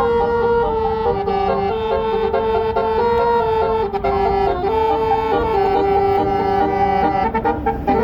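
Bus telolet 'basuri' musical horn playing a melody: several air-horn tones sounding together in held notes that step up and down in a tune without pause.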